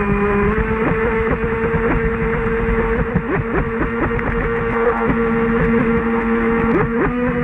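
Brushless electric drive of an RC speedboat (Leopard 4074 1400KV motor on a 6S battery) running at speed, heard from a camera mounted on the boat: a steady motor whine over a hiss of water. From about three seconds in, the pitch dips and recovers in quick flicks, several times a second.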